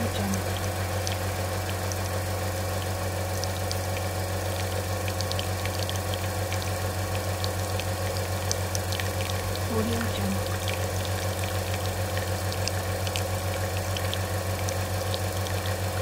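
Professional espresso machine's pump running with a steady low hum while liquid trickles, with faint crackling ticks over it.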